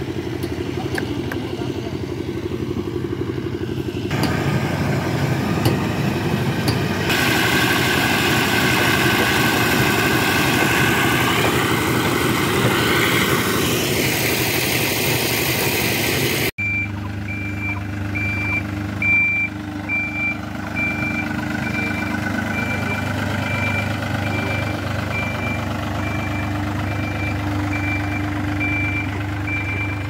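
A heavy machine's engine runs steadily and grows louder a few seconds in. After a sudden cut about halfway, a road roller's diesel engine runs while its reversing alarm beeps about once a second.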